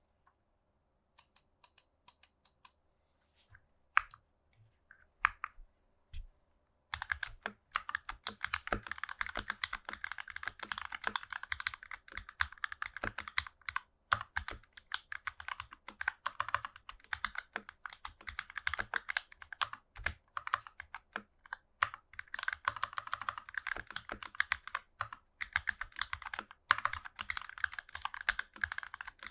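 Typing on an NK65 mechanical keyboard with Matrix Lab JWK FFF switches and GMK keycaps: a few separate keystrokes at first, then steady, fast typing from about seven seconds in.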